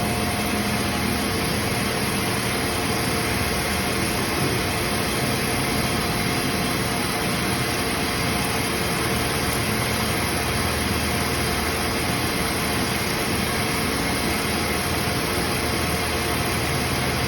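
Belmont SY-2535T CNC high-speed EDM drill running steadily while it burns a hole, with dirty water still flushing out: a constant machine hum and hiss with a few steady tones.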